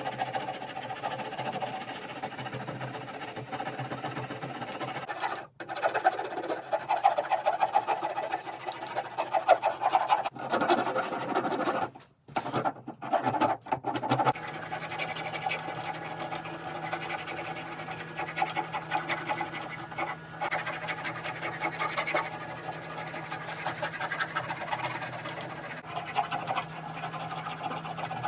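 Quick repeated scraping strokes of hand filing or sanding on the axe, broken by several brief drop-outs.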